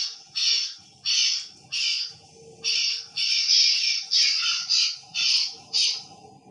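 Crow cawing: a run of about ten harsh caws in quick succession, a couple of them drawn out longer than the rest, an irritating sound.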